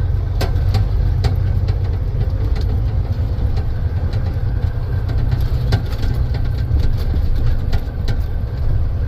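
A dump truck's diesel engine runs low and steady at idle, with a few sharp knocks and clacks, the clearest about half a second in and near six seconds.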